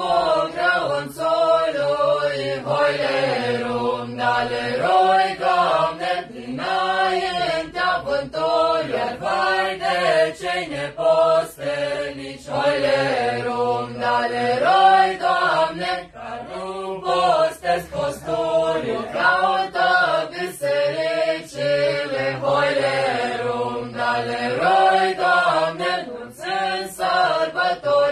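Group of young men and women singing a traditional Romanian colindă (Christmas carol) together.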